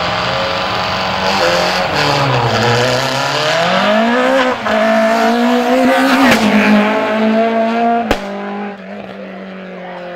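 A small hatchback race car's engine revving hard under acceleration, the pitch dropping and climbing again as it goes through the gears. There is a sharp click about eight seconds in, after which the engine runs steadier and quieter.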